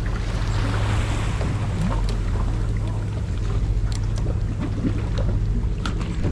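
Boat engine idling with a steady low hum, under wind on the microphone and water washing against the hull.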